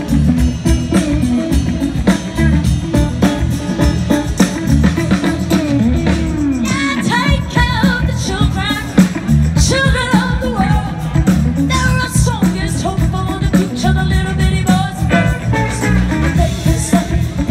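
Live blues band playing through the stage PA: drums, bass and guitars with keyboard, and a woman singing with a wavering vibrato from about six seconds in.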